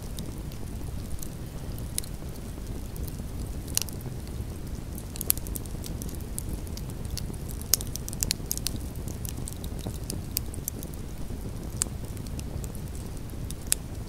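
Wood campfire burning: a steady low rush of flames with frequent sharp crackles and pops from the logs, busiest in the middle.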